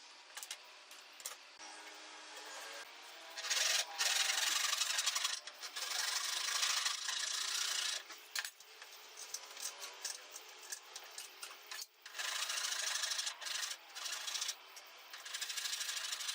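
Rough scraping of a tool working a workpiece, in long strokes of about three to four seconds each with short breaks between.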